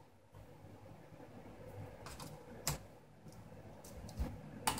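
Light plastic clicks and taps as new laptop speakers and their wires are handled and pressed into the plastic chassis: a few sharp clicks, the loudest near the end, over a faint low hum.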